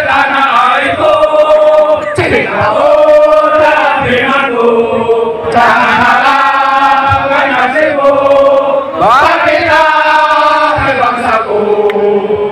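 A large crowd of men singing together in unison, holding long notes phrase after phrase.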